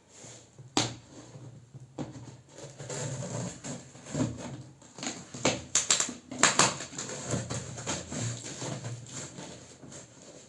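Irregular knocks, clicks and rustling of a laptop box and its packaging being handled and opened by hand.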